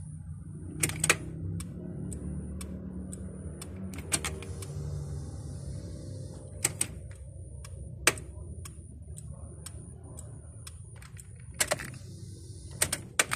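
Irregular sharp clicks and knocks, about a dozen, some in quick pairs, over a low steady hum.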